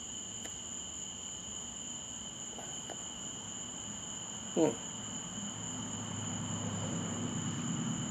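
Crickets trilling steadily at two high pitches, without a break. About four and a half seconds in there is a short falling vocal sound, like a brief hum from a person.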